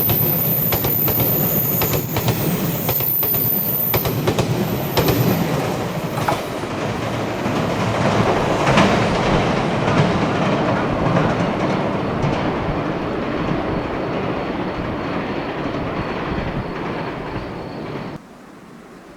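A 381-series electric train passing, its wheels clicking in quick runs over the rail joints, then a steady rumble that slowly fades and cuts off abruptly near the end.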